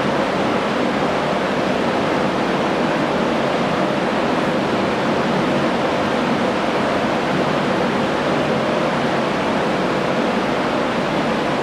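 Large drum fan running, blowing a steady, loud rush of air.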